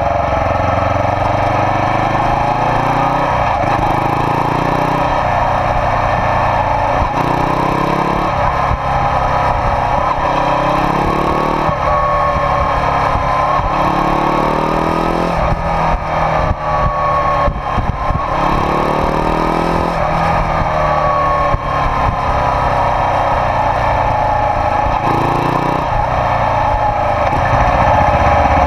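Air-cooled 400 cc parallel-twin engine of a 1991 Suzuki GS400E, fitted with a one-off silencer, running under way. The revs climb and drop again and again, with short breaks between the climbs.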